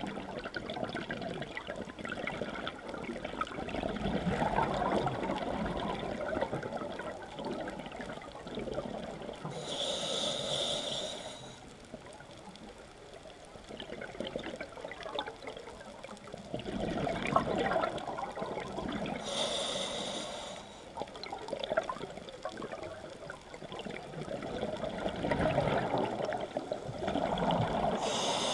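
Scuba diver breathing through a regulator underwater: a short hissing inhale about every nine seconds, three in all, with a longer rush of exhaled bubbles between them.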